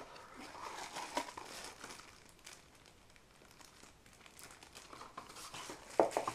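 Clear plastic bag around a power adapter crinkling as it is handled and drawn out of a small cardboard box, with a short louder knock near the end.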